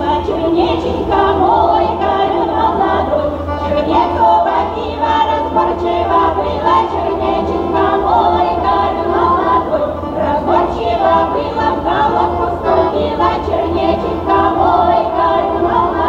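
Women's folk ensemble singing a Russian folk song together in several voices, accompanied by an accordion.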